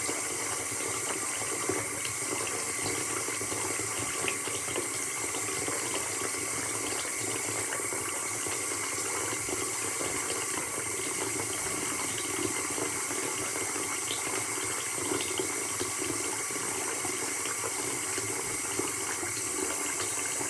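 Water pouring steadily from a tap into a sink, a continuous rushing splash with small drips and spatters through it.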